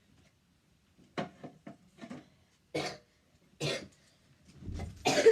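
A person coughing: several short coughs about a second apart, the loudest near the end.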